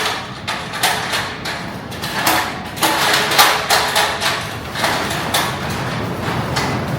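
Irregular knocks and clatter of an object being pushed and bumped into a tractor toolbox/carrier mount while trying to fit it. About five seconds in, the knocking gives way to steady wind noise on the microphone.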